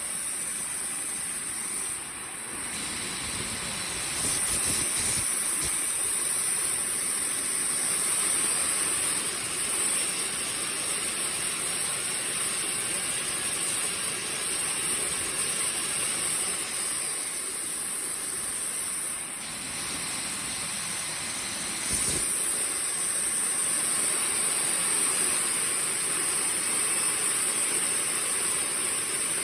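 IQ Hammer 90+ model turbojet engine running on a test run after servicing: a loud rushing hiss with a high turbine whine. Its power dips about two seconds in and steps back up about four seconds in, then dips again about nineteen seconds in and steps up again about twenty-two seconds in.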